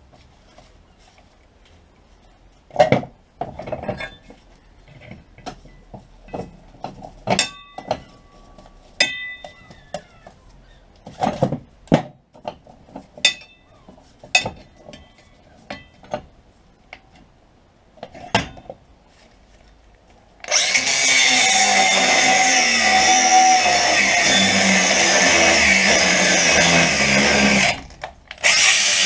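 Scattered knocks and clinks of steel parts being handled, a few of them ringing briefly. Then, about 20 seconds in, a handheld power tool starts cutting a steel gearbox-mount bracket with a loud steady whine. It stops for about a second near the end and starts again.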